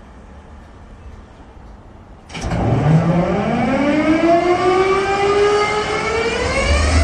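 WDG4-class diesel locomotive's EMD 710 two-stroke engine starting up: about two seconds in a loud whine cuts in suddenly and rises steadily in pitch for several seconds as the engine spins up, with a deep rumble building near the end.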